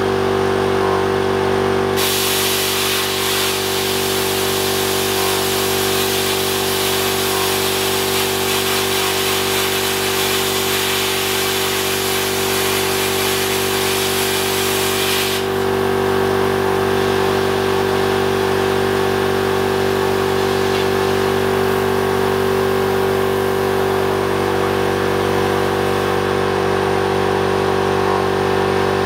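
Angle grinder's disc biting into the stainless steel frame for about 13 seconds, a loud hiss of cutting that starts a couple of seconds in and stops abruptly. A steady motor hum runs under it throughout.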